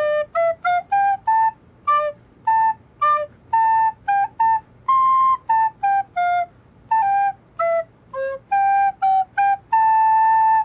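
Recorder played by a young child: a simple tune picked out note by note, each note tongued separately with short gaps, ending on one long held note.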